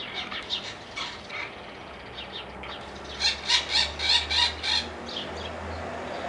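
A bird calling in a series of short, high-pitched chirps, coming in a rapid run of about five a second past the middle, over a steady low hum.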